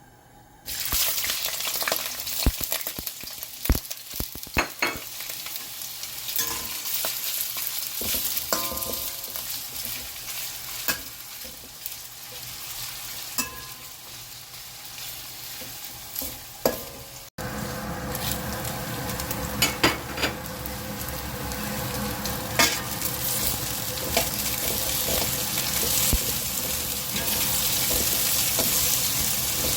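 Sausage and green onion sizzling in a hot pan as they are stir-fried, with scattered clicks and knocks of a utensil against the pan. The sizzle becomes louder and fuller a little past halfway.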